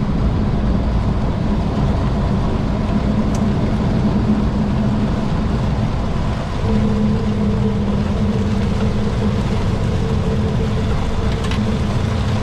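Boeing 737 flight deck during the climb after takeoff: a steady rush of engine and airflow noise with a steady hum under it, which dips briefly and shifts about six seconds in.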